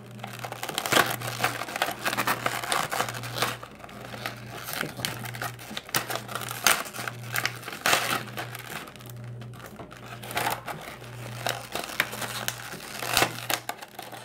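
Clear plastic blister packaging crinkling and clicking as it is handled and pried open by hand, in many irregular crackles.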